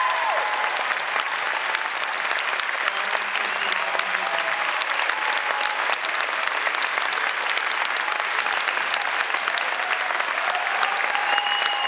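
Large crowd applauding steadily: dense, even clapping throughout.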